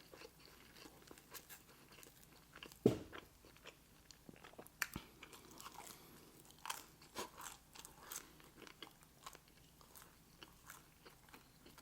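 Close-miked eating: biting, crunching and chewing with small mouth clicks and crackles throughout, and one louder low thump about three seconds in.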